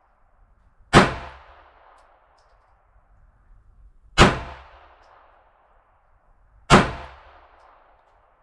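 Three single pistol shots from a Polish P-64 in 9x18mm Makarov, about a second in, at about four seconds, and near seven seconds, spaced a few seconds apart. Each sharp crack is followed by an echo that dies away over about a second.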